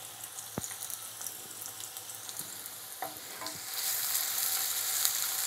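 Cumin seeds and sliced onion sizzling and crackling in hot mustard oil in a metal pan while a wooden spoon stirs them. The sizzle gets louder about four seconds in.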